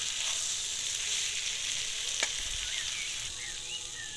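Spiced potatoes sizzling in oil in a metal kadai as they are stirred with a metal spatula, with one sharp metallic click about two seconds in. The sizzle eases slightly near the end as the potatoes are lifted out of the pan.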